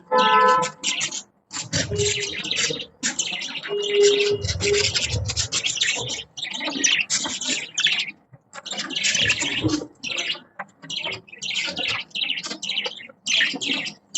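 Budgies chirping and chattering in quick, near-continuous bursts of high-pitched warbles and tweets, broken by a few brief pauses.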